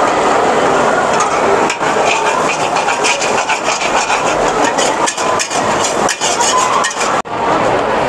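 Metal spatula and ladle scraping and clanking against a cast-iron wok as noodles are stir-fried over a gas burner, over a steady sizzle. The clatter comes in quick runs of strokes and cuts off abruptly near the end.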